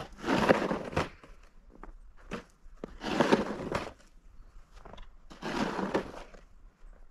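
Snow shovel scraping and pushing through snow on the ground, three strokes of about a second each, one every two and a half seconds or so.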